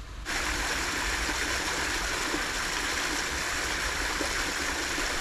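Steady rushing and splashing of water at the river's edge. It starts suddenly a moment in and then holds even.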